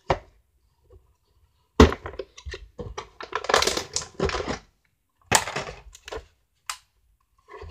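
Cardboard packaging being handled as a box is opened and the item pulled out: a sharp knock about two seconds in, then bursts of rustling and scraping, and a short click near the end.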